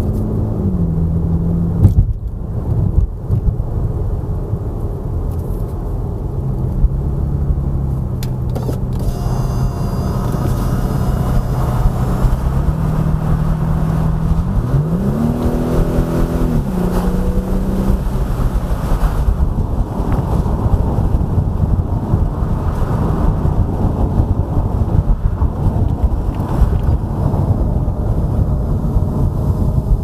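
Mercedes-Benz W204 C-Class V6 petrol engine heard from inside the cabin while driving, over steady tyre and road noise. Its pitch drops about a second in, holds steady, climbs and falls again around the middle, then sinks under the road noise in the last third.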